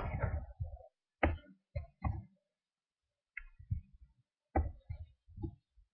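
Faint, scattered computer keyboard keystrokes and mouse clicks: about eight short taps with irregular gaps, made while code is typed and a compile is started.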